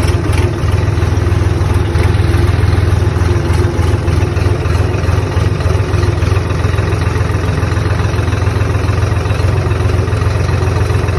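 Swaraj tractor's diesel engine running steadily at constant speed while the tractor drives along a dirt track, heard from the driver's seat as a steady low drone.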